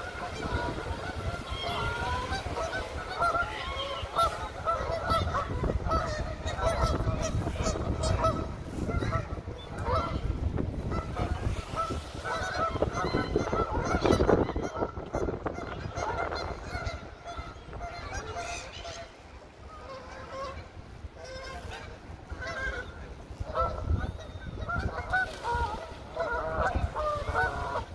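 A flock of Canada geese honking, many calls overlapping; the calling thins out for a few seconds past the middle and picks up again near the end.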